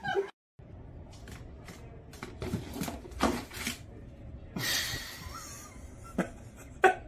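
Keel-billed toucan making a series of short, sharp clicks and taps, about a dozen spread over several seconds, with a brief hiss a little past the middle.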